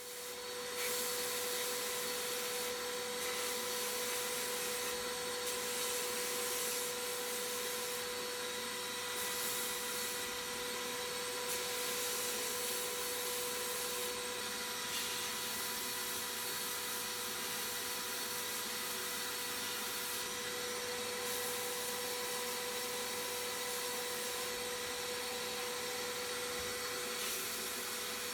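A motor-driven workshop tool running steadily: a constant hum under an even hiss, switched on just at the start.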